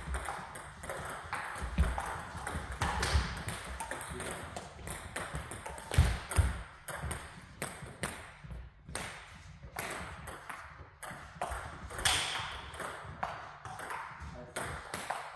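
Table tennis balls clicking sharply off bats and table tops during rallies, in runs of quick clicks with short gaps between points.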